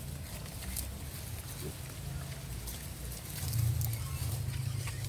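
Native pigs grunting low and steadily, louder about two-thirds of the way in, with scattered small clicks and rustles.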